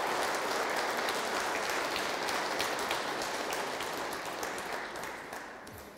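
Audience applauding, steady at first and then dying away over the last couple of seconds.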